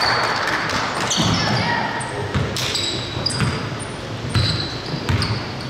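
A basketball being dribbled on a gym court: a run of irregular low thuds starting about a second in, with short high sneaker squeaks and players' voices.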